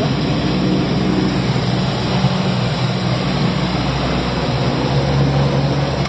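The single turboprop engine of a Cessna 208B Caravan running, heard inside the cabin as a loud, steady drone with a low hum. The hum's pitch shifts a little near the end.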